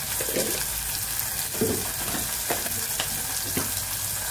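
Green chillies frying in hot oil, with a steady sizzle and a few short pops scattered through it.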